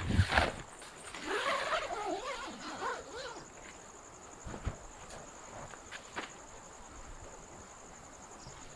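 Steady high-pitched insect chirring, like crickets, with a wavering call for about two seconds near the start and a few scattered knocks and clicks.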